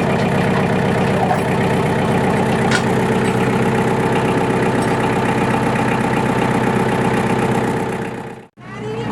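An engine running steadily at a constant speed, loud and even. It breaks off for an instant near the end and resumes.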